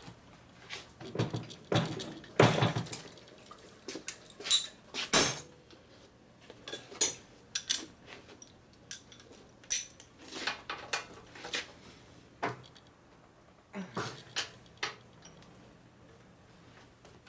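Steel hand tools clinking and clattering against metal as a socket and ratchet are fitted and worked on a motorcycle's fork triple-clamp bolts. Irregular sharp clinks and knocks, busiest in the first few seconds and again later on.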